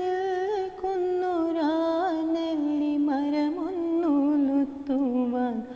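A woman singing a slow Malayalam song unaccompanied, drawing out long wavering notes that slide lower toward the end, with a short breath between phrases.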